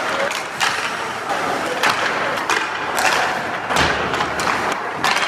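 A series of sharp thuds and impacts from sports practice, about six spread unevenly over five seconds, over a steady noisy background.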